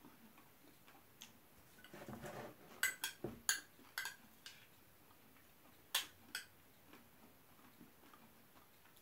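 Metal spoon scraping and clicking against a bowl as food is scooped: a short scrape about two seconds in, then a quick run of sharp clicks and two more a little later.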